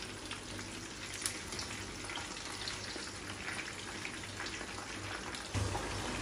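Samosas sizzling steadily in hot oil in a frying pan, with a sharp click of metal tongs against the pan about a second in.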